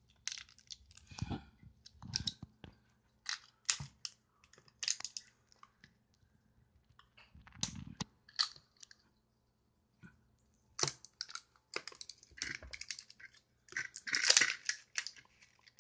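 Plastic wrapping crinkling and a plastic surprise egg clicking as small fingers pick and pry at it to get it open: short, irregular crackles and clicks with a couple of brief pauses.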